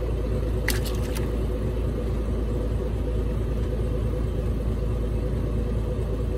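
Small boat engine running steadily at idle, with a deep, even rumble and a constant hum. A few sharp clicks come about a second in.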